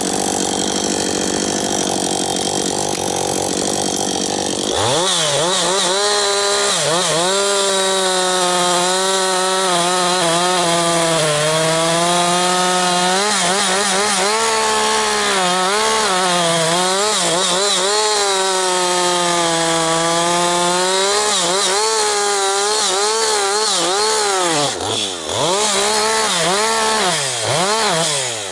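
Husqvarna 555 two-stroke chainsaw with first-generation AutoTune running at full throttle. About five seconds in, its pitch drops as it goes under load in a cut through wood, then rises and falls as it works the cut. Near the end the revs fall away twice as it comes off the throttle.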